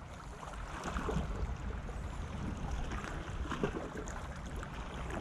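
Wind rushing on the microphone over small sea waves lapping against a rocky shore, a steady unbroken noise.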